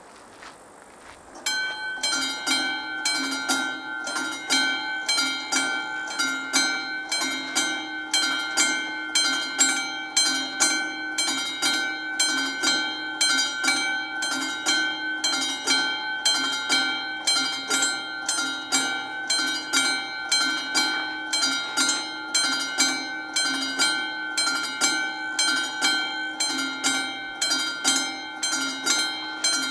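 Classic mechanical warning bell of a Czech VÚD level crossing starting to ring about a second and a half in, struck repeatedly in an even rhythm: the crossing's warning that a train is approaching.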